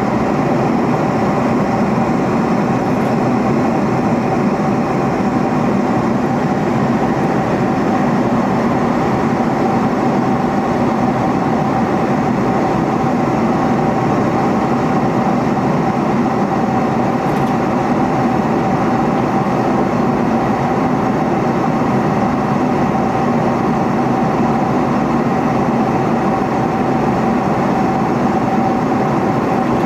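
Steady in-flight cabin noise of a Boeing 747-400: an even rush of engine and airflow noise with a steady hum running through it.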